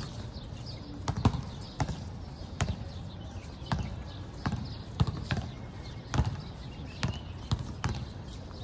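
Basketball bouncing on a hard outdoor court: irregular sharp thuds as the ball is dribbled, roughly one every half second to a second.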